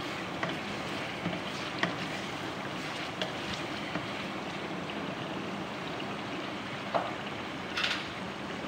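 Chicken pieces sizzling steadily in hot oil in a non-stick karahi while being stirred with a slotted wooden spatula, which gives a few short knocks against the pan, the clearest about seven and eight seconds in.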